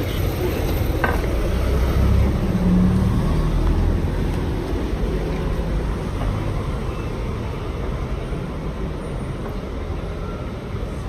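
Busy street ambience: a steady low rumble and noise haze with no clear speech, a brief knock about a second in, and a low hum rising in level around two to three seconds in.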